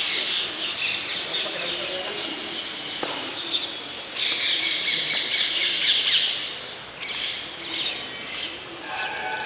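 Many birds squawking and chirping together in a dense, continuous chatter, loudest from about four to six and a half seconds in.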